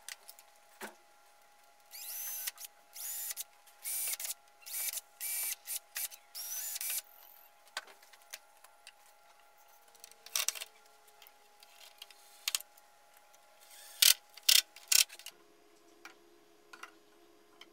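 Makita cordless drill running in a quick series of short bursts, each spinning up and stopping, as screws are driven to fix a wooden fence onto a home-made jointer. A few sharp clicks and knocks follow near the end, the loudest sounds here.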